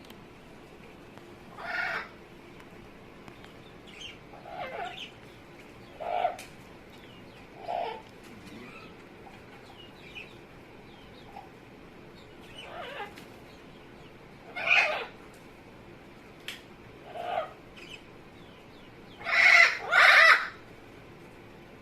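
Amazon parrot making a series of short calls, each under a second, spaced a second or more apart, with the two loudest close together near the end.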